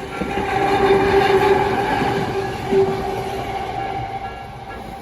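Jōmō Electric Railway train passing over a level crossing. It builds quickly to its loudest in the first couple of seconds, with a steady humming tone over the wheel and rail noise, and dies away through the rest. The crossing's warning alarm, a repeating electronic bell about twice a second, carries on faintly beneath it and comes through again near the end.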